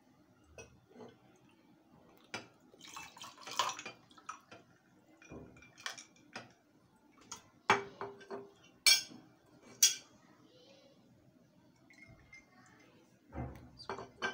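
Iced lemonade poured from a glass jug into a drinking glass over ice cubes, with scattered small clinks of ice and glass. Three sharp glass clinks come about a second apart just after the middle.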